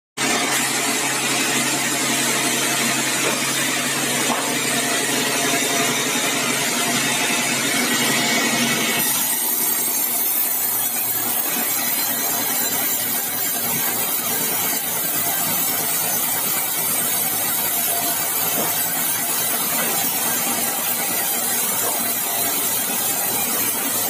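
Large vertical band saw running and sawing a bengkirai log: a loud, steady sawing noise whose tone changes abruptly about nine seconds in.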